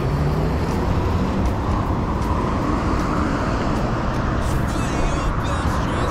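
Steady road-traffic noise, a dense low rumble of passing cars and road sound.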